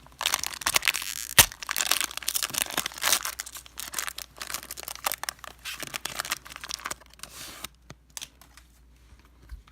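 Foil trading-card pack wrapper being torn open and crinkled, a dense crackling with one sharp snap about a second and a half in. The crinkling stops after about seven and a half seconds, leaving only a few faint ticks of handling.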